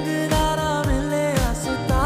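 Background music with a sung melody over a steady beat.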